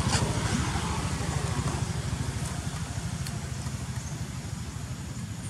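A small engine running with a fast, even low throb, growing steadily fainter.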